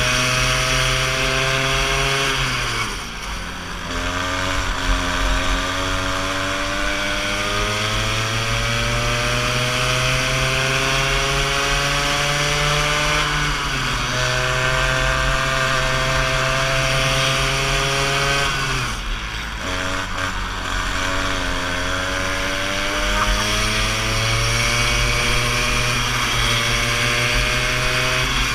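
Go-kart engine heard from onboard the kart, revving up steadily as it accelerates. The revs drop sharply about three seconds in and again about two-thirds of the way through, then climb again each time.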